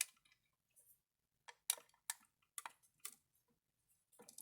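Light plastic clicks and taps from handling a small plastic toy droid and its little antenna pieces: several separate sharp clicks, spaced irregularly.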